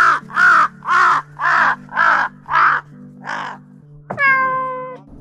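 Crows cawing, a steady run of seven harsh caws about two a second. About four seconds in comes one long, louder call that drops sharply in pitch and then holds.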